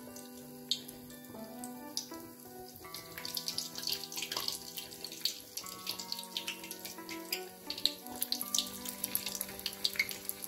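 Hot oil sizzling and crackling as besan-battered onion slices deep-fry in a kadai for onion bajji, the crackle growing busier about three seconds in. Soft background music with long held notes plays underneath.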